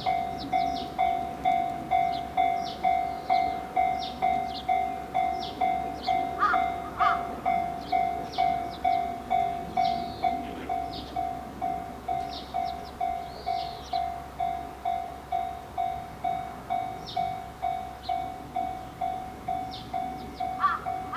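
Japanese railway level-crossing warning bell ringing, a steady ding-ding about twice a second, signalling that a train is approaching. Birds chirp over it.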